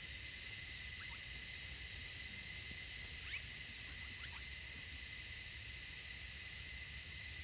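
Outdoor ambience: a steady high-pitched insect drone, a few faint short descending bird chirps, and a low rumble of wind on the microphone.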